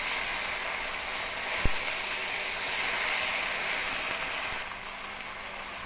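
Crab frying in curry and oil in a pot, a steady sizzle with one sharp knock about two seconds in; the sizzle gets quieter near the end.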